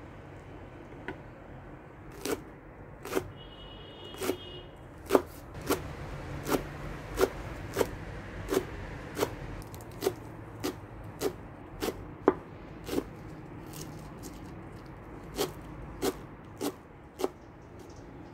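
Chef's knife slicing rolled leafy greens into thin strips, each stroke ending in a sharp knock of the blade on a wooden chopping board: about twenty cuts at roughly one and a half a second, with a short pause two-thirds of the way through.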